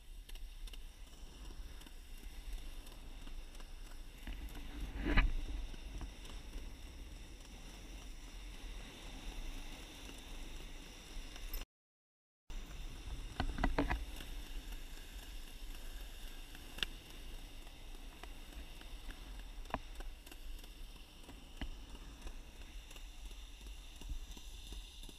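Skateboard rolling along a concrete path: a steady low rumble from the wheels with scattered clicks and clacks. A loud knock comes about five seconds in, and near the middle all sound briefly cuts out, then a quick run of clacks follows.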